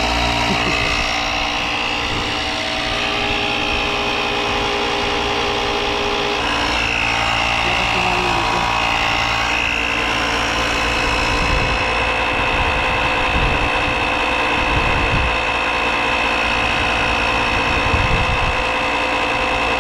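Portable all-purpose tire inflator's electric compressor running steadily to pump up a flat tire, a noisy, even whine over a low rumble.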